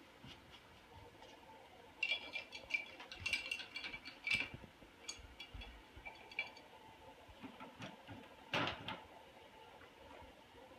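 A quick run of light clinks and taps for a few seconds, like small hard objects knocking together, then one short scuffing noise about three-quarters of the way through, over faint room tone.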